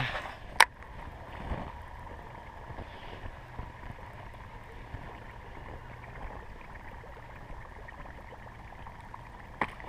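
Steady rush of wind and water noise with a faint, even whir from a Daiwa Zillion baitcasting reel being wound in during a buzzbait retrieve. A single sharp click comes just under a second in.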